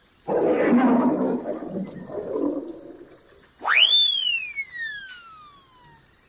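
A lion's roar used as a sound effect: a rough, rumbling roar lasting about three seconds. It is followed by a whistle-like tone that swoops up sharply and then slides slowly down.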